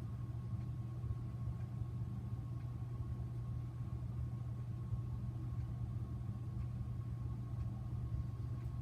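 Casablanca Ventura II ceiling fan running, its motor giving a steady low hum with a faint steady high whine above it.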